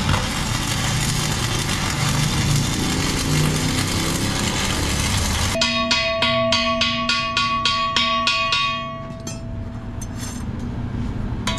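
Electric arc welding crackling and sizzling steadily inside a steel truck wheel drum. About five and a half seconds in the arc stops, and a hand tool raps the weld about four times a second for some three seconds, each strike setting the steel drum ringing; fainter scraping follows.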